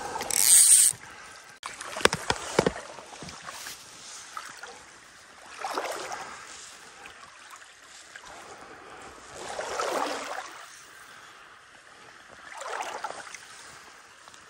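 Small creek running, with a soft swell of water sloshing every three to four seconds. A loud rustling burst comes in the first second and a few clicks follow about two seconds in.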